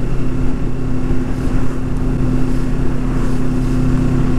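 Kawasaki Ninja 650 parallel-twin engine running at a steady speed under wind rush, heard from a helmet chin-mounted camera while riding: an even drone.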